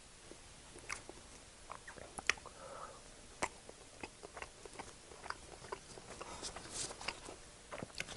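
A person eating close to the microphone: biting and chewing food, with many short, irregular wet mouth clicks and smacks.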